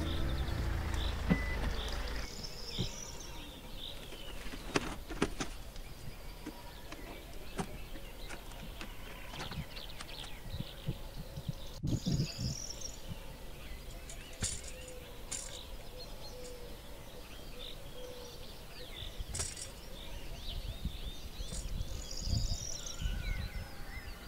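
Small birds chirping and calling throughout, with scattered knocks and clatters of camping gear being handled: a folding camp table lifted from a car boot and a plastic water canister set on a folding stool. Background music fades out in the first two seconds.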